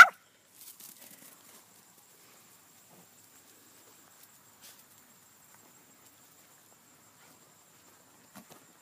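A Pomeranian gives one short, sharp bark right at the start. After that there are only faint soft rustles and ticks, with a faint steady high-pitched insect drone throughout.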